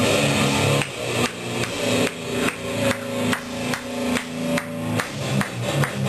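Repeated sharp strikes, about two to three a second, each followed by a short pitched ring; the strikes come a little faster near the end.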